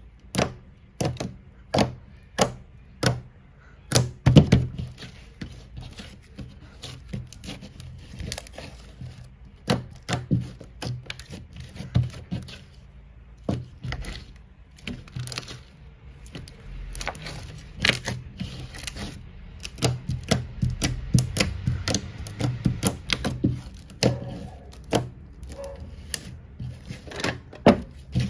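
Thick green slime kneaded and pressed by hand, giving irregular sharp clicks and pops as air pockets burst. There are single clicks about once a second at first, then a dense crackle of them.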